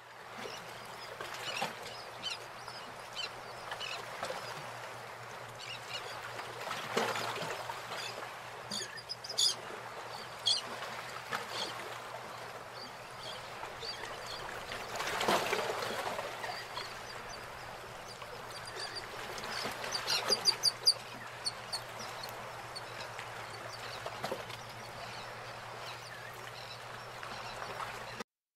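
Birds calling over a steady background noise, like an outdoor farmyard ambience. Quick runs of sharp, high chirps come about a third of the way in and again past the middle.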